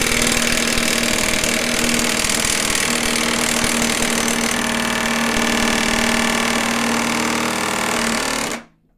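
Ingco 1,350Nm 20V cordless impact wrench running flat out in high mode, hammering continuously as it drives an M20 nut tight, then cutting off suddenly near the end. The owner suspects the thread began to strip toward the end, as the nut seemed to keep turning.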